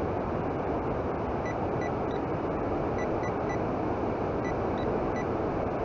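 Electronic bite alarm beeping in short, irregular runs of single high beeps as line is pulled from the rod, which the angler takes for a bite. A steady rushing noise runs underneath.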